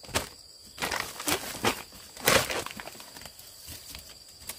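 Irregular crunching and rustling of forest undergrowth or dry leaf litter, loudest about two seconds in, over a steady high drone of insects.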